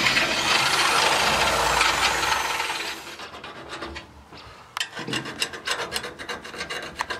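Corded electric hand drill boring into a steel truck frame rail, running steadily and then stopping about three seconds in. Quieter, rapid scraping strokes on the metal follow.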